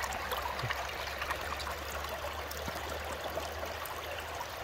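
Water running steadily down a sluice box over its ribbed rubber Dream Mat, with many faint crackles.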